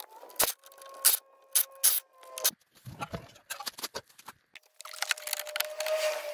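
Work on a car's front bumper: sharp clicks and knocks of fasteners and plastic parts, with a steady whine for about two and a half seconds at the start and again from a little past the middle.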